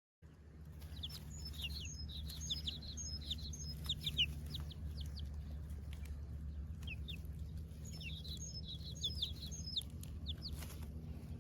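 Birds chirping: rapid runs of short, high, falling calls in two bouts, the first lasting about four seconds and the second starting about seven seconds in. A steady low hum lies underneath.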